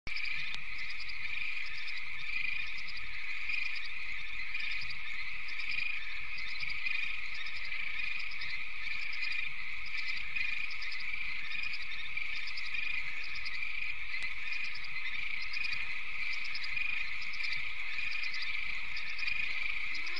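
Crickets chirping without a break: a steady high trill, with a pulsed chirping above it repeating about twice a second.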